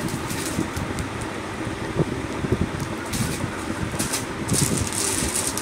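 Clear plastic packets rustling and crinkling in short bursts as they are handled, over steady background noise.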